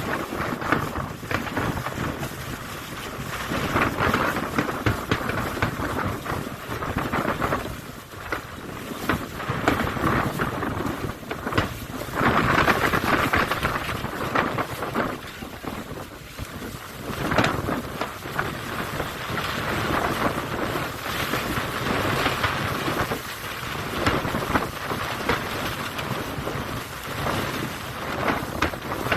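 Aerial fireworks display: shells bursting in repeated booms over dense, continuous crackling, swelling louder and easing off several times.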